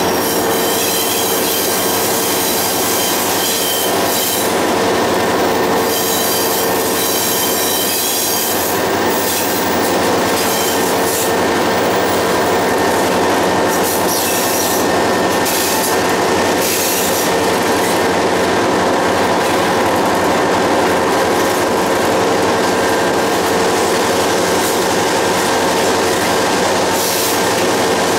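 A moving train heard from on board: a steady, loud rumble and rush of steel wheels on rail, with high wheel squeal at the start and again about six to eight seconds in.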